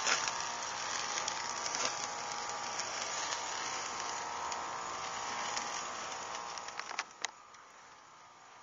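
Iguana meat sizzling and crackling on a charcoal grill, with scattered small pops over a steady hiss. About seven seconds in, the grill lid is shut with a couple of sharp clacks and the sizzle turns much quieter.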